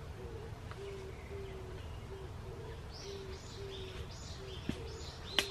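Forest birds calling: a steady run of short, low hooting notes, about three a second, with a small bird's high chirping phrase about three to four seconds in. A sharp knock, like wood against wood, comes near the end.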